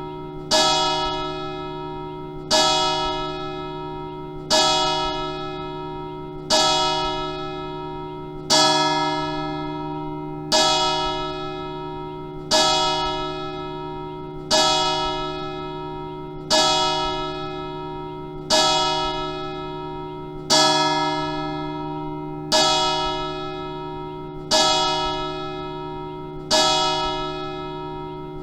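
A single church bell tolling slowly, struck about every two seconds on the same note, each stroke ringing on into the next.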